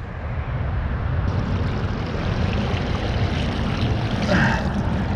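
Steady rushing of creek water around someone standing in the stream, with a low rumble underneath.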